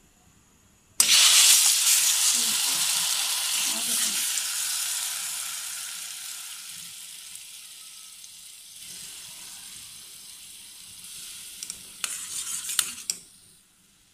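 Ground apple paste hitting hot ghee in a heavy stainless steel pan: a loud sizzle starts suddenly about a second in and slowly dies down as the paste is stirred. Near the end a steel spoon clicks and scrapes against the pan.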